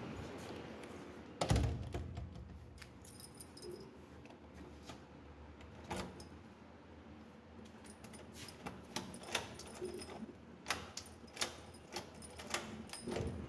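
Keys and metal lock parts being handled: scattered light metallic clicks and jingles, with one louder knock about a second and a half in.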